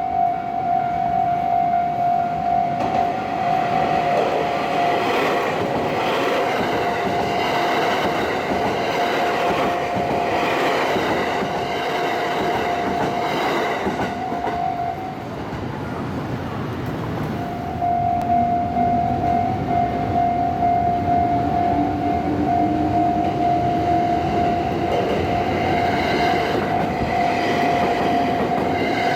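Japanese railway level-crossing alarm sounding a steady electronic tone while a train runs over the Umeda freight line crossing, its wheels rumbling and clattering on the rails. The alarm tone drops out for about two seconds midway and then resumes, and a low rising whine comes in during the later part.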